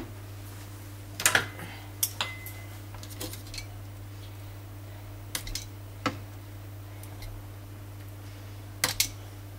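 Metal spoon clinking against a frying pan and a clay casserole dish as sauce is spooned over fish, in scattered clinks, the loudest about a second in and a quick pair near the end. A steady low hum sits underneath.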